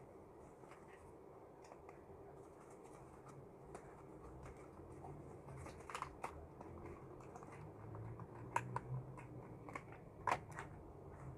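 Faint rustling as paper instruction leaflets and the cardboard phone box are handled. A few sharper clicks and taps come as the pieces are set down on a desk; the loudest are about six seconds in, near 8.5 seconds, and just after 10 seconds.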